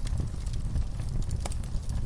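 Wood fire burning in a fireplace: a steady low rumble of flames with scattered crackles and pops, one sharper pop about three quarters of the way through.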